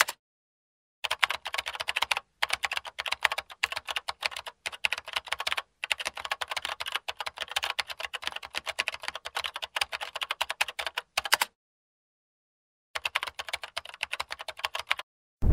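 Computer keyboard typing, fast clicking keys in runs broken by short pauses and one longer pause near the end: a typing sound effect for text being typed on screen.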